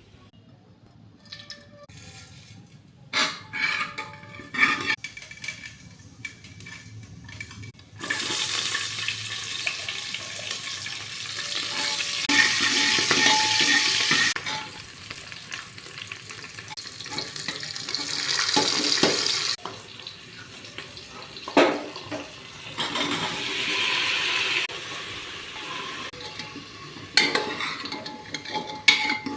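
Frying in a cooking pot: first a few knocks and clinks of a spoon against the pan, then loud sizzling in hot oil as the potato, cauliflower and spices for pulao are stirred, in several spells with sudden changes of level and further scrapes and knocks of the spoon.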